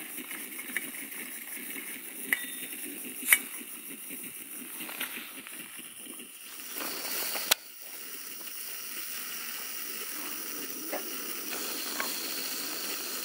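Coleman Dual Fuel 533 single-burner liquid-fuel stove being lit cold: a few sharp clicks, a rising hiss and a loud click about seven and a half seconds in, after which the burner settles into a steady hiss that grows a little louder. Cold, the stove is slow to get going until the bar through the middle of the burner heats up.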